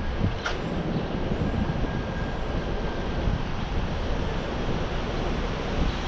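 Wind rushing over the microphone of a camera riding on a moving bicycle, a steady low rumbling haze, with one sharp click about half a second in.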